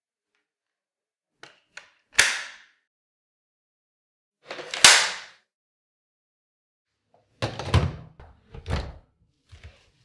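Hard-plastic clicks of a Dyson V8 cordless vacuum being assembled: two light ticks, then two sharp snaps about two and a half seconds apart, the second the loudest, as the wand locks into the machine. Later comes a cluster of duller knocks and one last small tick as the machine is handled.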